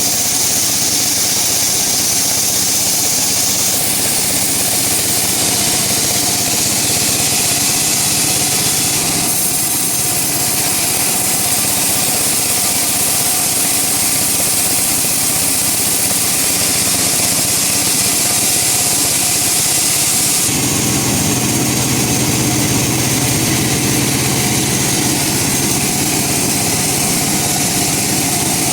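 Woodworking machinery running steadily and loudly, with a high-pitched hiss-like machining noise. The noise shifts in character a few times, and a low hum comes in about two-thirds of the way through.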